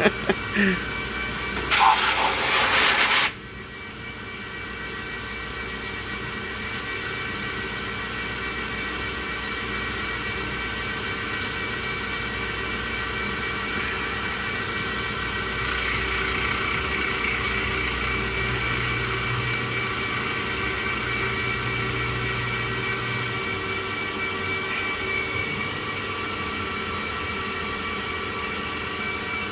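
CNC machining centre running a 12 mm carbide end mill that is milling bolt holes in a BMW crown wheel: a steady spindle whine with several constant tones and a low hum that shifts as the axes move the cutter around the hole. About two seconds in, a loud hiss lasts a second and a half, then drops away.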